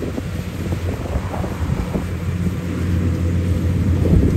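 Zoomlion FH100E rice combine harvester's engine running steadily as it cuts rice, a low hum, with wind rumbling on the microphone.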